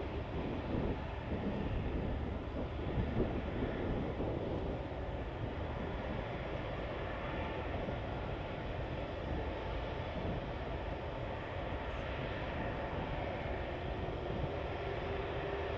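Rolls-Royce Trent 900 engines of an Airbus A380 running at low power on the ground: a steady distant rumble and hiss. A faint steady whine comes in near the end.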